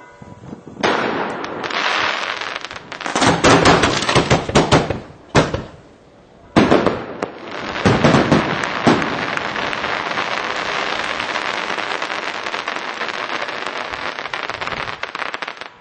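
Aerial fireworks going off: a run of loud bangs from bursting shells over dense crackling, a brief lull, more bangs, then a long even crackle that runs on for several seconds before dying away near the end.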